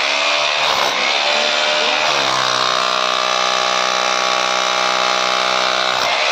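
Buildskill BGBH26RE rotary hammer running in hammer-only mode with a chisel bit, breaking up concrete. The motor's steady hum sags in pitch under load in the first couple of seconds, then holds steady, with a short dip near the end.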